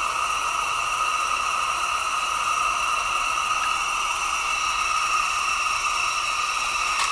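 Gas burner hissing steadily into the fire tube of a small live-steam model boiler, with no chuff from the engine. The little oscillating engine is not running: the burner looks too weak to raise enough steam.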